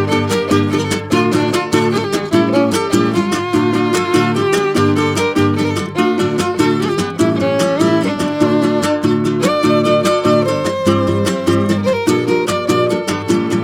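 Background music: a violin melody over quick, evenly pulsed plucked-string accompaniment.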